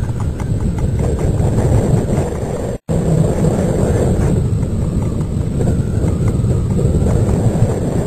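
Steady low rumble and buffeting picked up by the microphone of a high-altitude balloon payload's onboard camera, with irregular faint knocks. It cuts out to silence for an instant about three seconds in.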